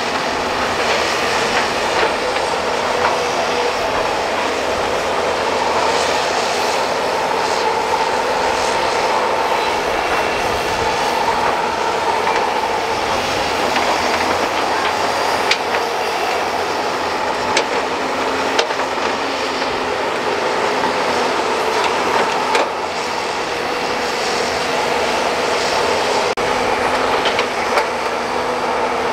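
Hydraulic crawler excavators working mud: a steady engine-and-hydraulic drone with a held whining tone, broken by a few sharp metallic clanks, mostly in the second half.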